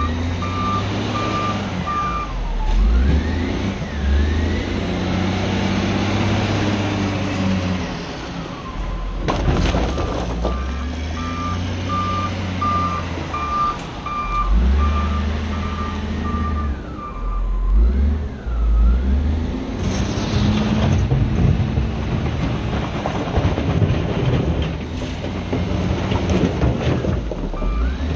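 Cat 966G wheel loader's diesel engine running under load, revving up and down as it works, with a reversing alarm beeping steadily near the start, in the middle and at the end. A couple of sharp knocks of rock or bucket come in the middle and about two-thirds through.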